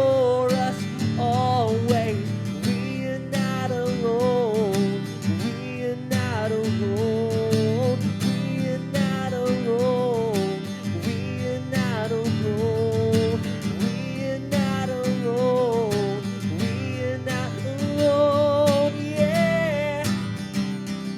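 A worship song sung over strummed acoustic guitar, the voice carrying a continuous melody line.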